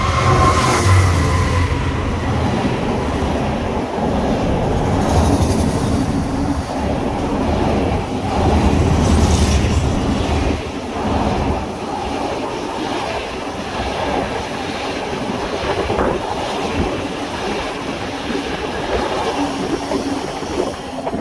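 Class 66 diesel locomotive 66108 passing at speed with a long intermodal container train, its engine loudest near the start. The container wagons follow with continuous wheel rumble and clickety-clack over the rail joints, with some wheel squeal. The sound cuts off suddenly at the end.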